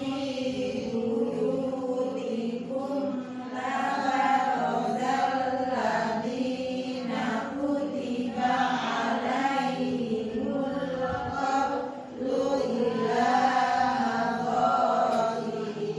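Qur'an recitation: a single voice chanting the verses in a slow, drawn-out melody with long held notes, pausing briefly for breath about twelve seconds in.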